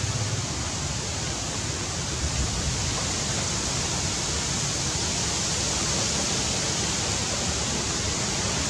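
Steady, even outdoor background hiss, strongest in the high range. No distinct event stands out.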